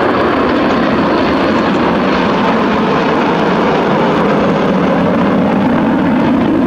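Loud, steady jet noise from a six-ship formation of twin-turbofan Kawasaki T-4 jets flying overhead.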